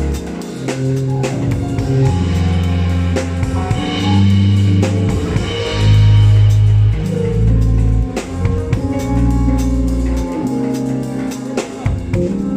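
A live band playing: a drum kit keeping a busy beat over held bass notes that change every second or two, with guitar.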